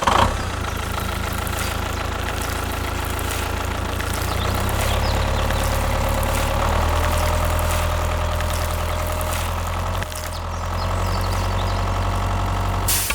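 A motor runs steadily with a low hum. It gets louder about four seconds in and changes pitch at about ten seconds.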